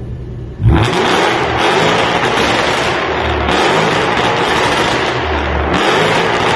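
Range Rover Sport with a Stage 1 tune and downpipe accelerating hard from about half a second in. Its exhaust note climbs in pitch with a few brief dips, with pops and crackles.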